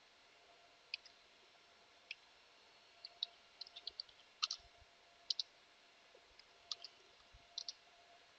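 Light, irregular clicks from working a computer, about a dozen spread over several seconds and several coming in quick pairs, over faint room tone.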